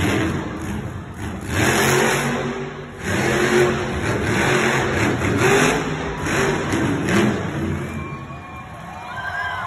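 Grave Digger monster truck's supercharged V8 revving in several hard bursts of throttle, easing off near the end.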